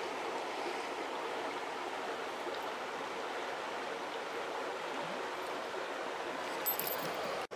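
Creek water running with a steady rushing babble, and a brief cluster of sharp clicks near the end.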